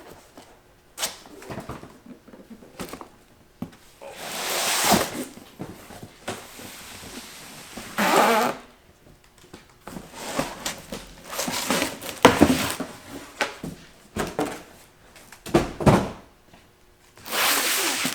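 Unboxing sounds: cardboard and packaging rustled and scraped in irregular bursts, with knocks as tools and boxes are handled and set down.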